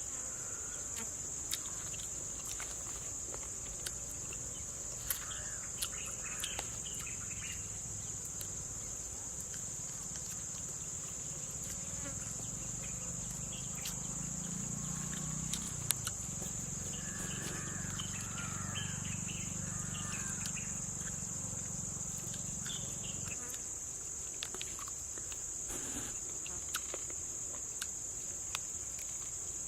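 Insect chorus, crickets trilling in one steady high-pitched drone without a break, with scattered faint clicks.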